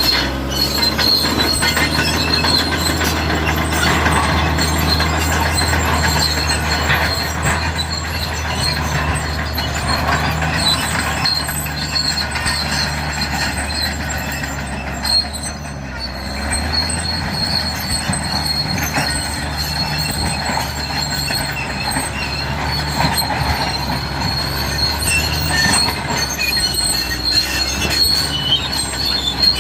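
Cat D6R crawler bulldozer working: its diesel engine runs steadily under a constant high squeal and clatter from its steel tracks. The sound dips briefly about halfway through.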